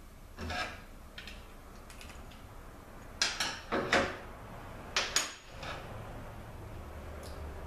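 Metal transmission parts and tools being handled: a series of sharp clinks and clatters, the loudest cluster coming about three to five seconds in.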